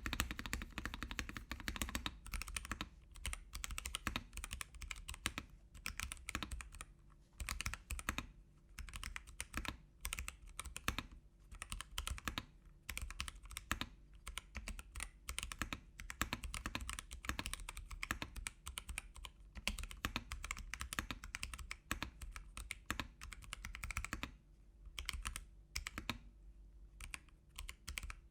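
Typing on a mechanical keyboard fitted with Akko Jelly Blue tactile switches: fast, continuous keystrokes that slow to separate presses in the last few seconds.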